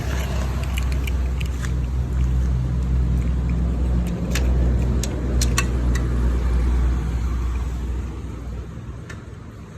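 Harley-Davidson Sportster 1200's air-cooled V-twin running through a Thunder Header 2-into-1 exhaust, a deep, loud rumble that dies down near the end. A few sharp clicks come through around the middle.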